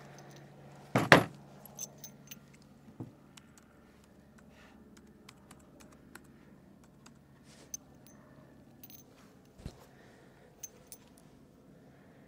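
Gun and brass handling: scattered light metallic clicks and clinks, with one sharp knock about a second in, as the shooter handles the .357 Magnum revolver and its cartridges between strings.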